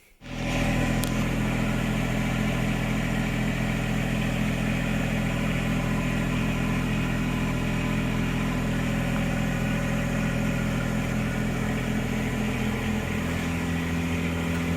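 Engine idling steadily; its note shifts slightly about twelve seconds in.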